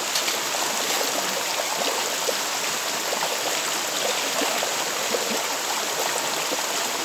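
Shallow rocky stream running over stones: a steady rush of water with small splashes throughout.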